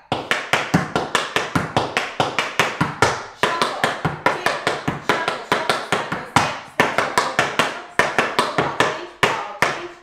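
Metal taps on tap shoes striking a wooden tap board: a quick, uneven run of taps, several a second with a few short breaks, danced without music as a tap combination of paradiddles, shuffles, ball changes and a pullback.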